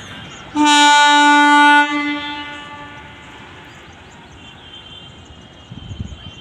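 Electric locomotive's air horn sounding one long, very loud blast of about a second and a half. The blast then fades away as the passenger train approaches.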